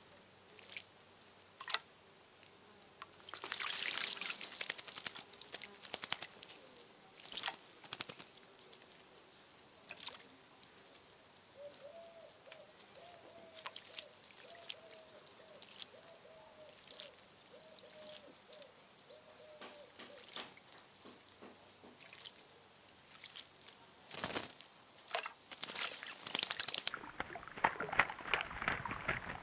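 Small birds bathing in a shallow terracotta birdbath: a house sparrow and a juvenile common blackbird splashing and flicking water with their wings, in irregular bursts, busiest about four seconds in and again near the end. A faint wavering tone runs through the middle.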